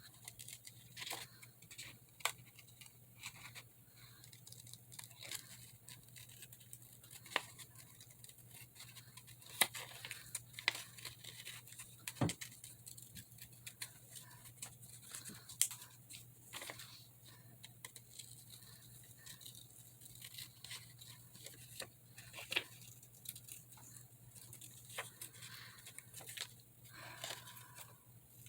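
Small scissors snipping paper in short, irregular cuts: fussy cutting closely around a paper image.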